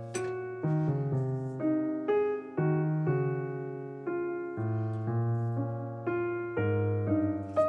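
Background piano music: a gentle melody of single struck notes over sustained low bass notes, a few notes a second. A short knock near the end.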